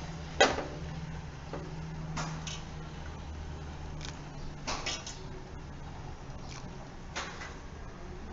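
A few sharp knocks and clatters as shelled green peas are tipped into a steel pan of boiling water, over a low steady hum.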